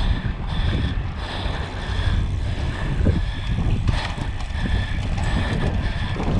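Wind buffeting a moving camera's microphone: a steady, heavy rumble with a hiss above it.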